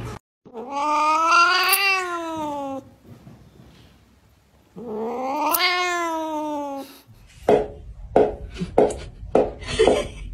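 Goat bleating: two long, drawn-out calls, each about two seconds, rising then falling in pitch. Then a quick run of about eight short sharp sounds near the end.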